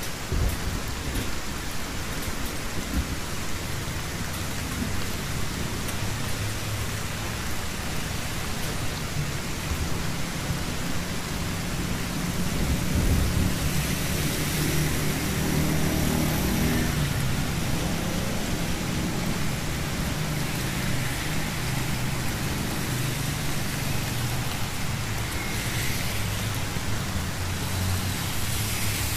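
Steady rain falling on a wet street, with the low hum of motor vehicles underneath. About halfway through a motorbike passes close by, its tyres hissing on the wet road.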